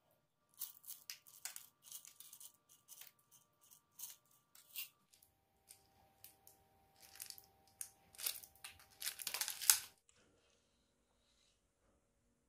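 Crisp, irregular rustling, crinkling and small rattling as sprinkles are scattered over cakes sitting in paper cake liners, with the liners crackling. The sounds come in short clusters and are densest and loudest about nine seconds in, then stop.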